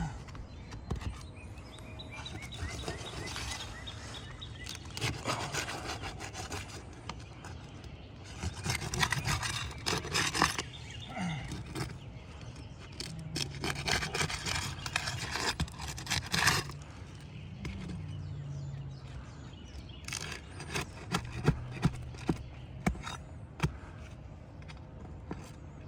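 Roof shingles being scraped and pried loose to remove a damaged shingle: rough scraping in spells of a second or two, then a run of sharp clicks near the end.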